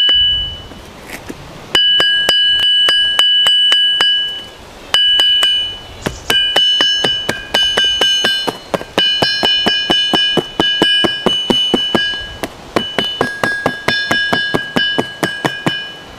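Hammer tapping quickly, about four light blows a second, on cardboard laid over the edge of a vintage anvil's base, the anvil ringing with a clear high tone under each run of taps, tracing its outline for a mounting template. The taps pause briefly about a second in and again around five seconds.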